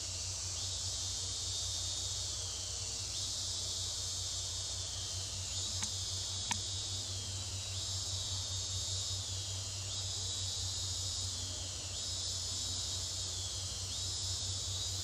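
Dense, high insect chorus, swelling in repeating cycles about every two and a half seconds, each sliding slightly lower in pitch, over a steady low hum; two faint clicks come about halfway through.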